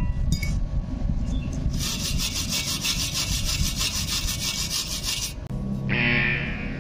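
Wire brush scrubbing a fresh stick weld on thin galvanized steel square tube, cleaning off the slag: a fast, scratchy rasping from about two seconds in to just past five. Near the end a loud buzzer tone sounds for about a second.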